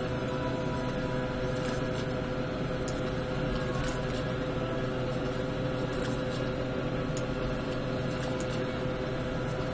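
A steady hum, with a few faint, scattered clicks.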